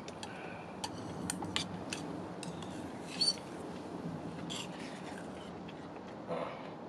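Metal utensils clicking and scraping against dishes at a meal table: a scatter of short sharp clicks, with one ringing metal clink about three seconds in, over a steady low hum.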